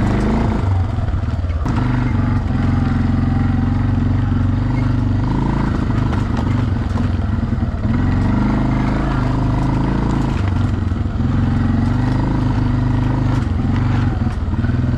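ATV engine running at a steady low speed while being driven over rough grassland, its pitch shifting a little now and then. A few short knocks from bumps sound over it.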